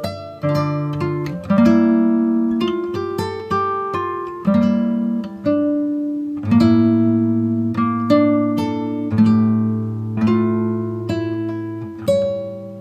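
Background music: an acoustic guitar picking a gentle melody of plucked notes and chords, each note ringing and fading.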